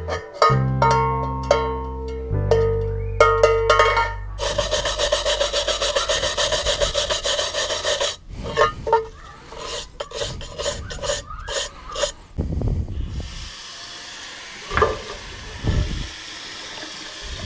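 Piano music for the first few seconds, then about four seconds of fast, even rasping as something is rubbed by hand, followed by irregular scraping and a few knocks.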